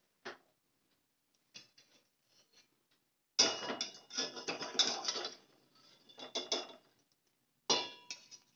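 A gas stove knob clicks as it is turned off. Then a wire-mesh strainer scrapes and clinks against a stainless steel pot, scooping boiled soya chunks out of the water, with one sharper clink near the end.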